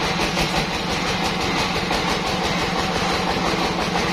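Band sawmill machinery running with a steady, even drone.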